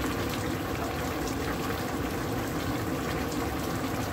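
A pot of mango pieces in a sugary, spiced liquid boiling hard on high heat. It gives a steady bubbling with small pops as the water cooks down.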